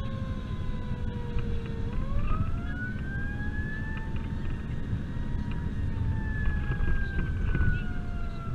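Emergency vehicle siren in a slow wail on a fire response, falling, rising again about two seconds in, holding high, then slowly falling. Under it runs the vehicle's engine and road rumble, heard from inside the cab.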